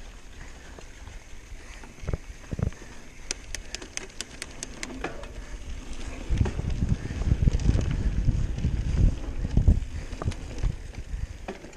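Mountain bike rolling down a dirt singletrack: tyres on the dirt and the bike rattling over bumps, with wind rumbling on the microphone. A quick run of sharp clicks comes about three to five seconds in, and from about six seconds on the rumble grows louder with irregular knocks as the trail gets rougher.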